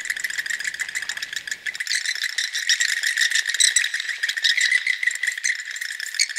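Rapid, dense rattling clicks, high-pitched and without a break.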